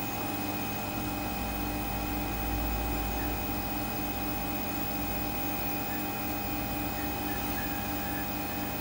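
Steady mains electrical hum from a powered vintage Ferranti induction electricity meter and its lamp-load test rig, with one tone pulsing faintly about three or four times a second. The meter is running under load.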